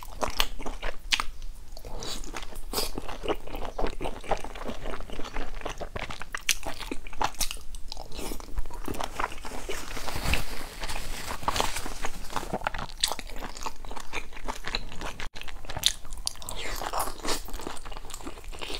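Close-up eating sounds: biting into and chewing large pan-fried stuffed buns, with many short sharp crackles and wet chewing.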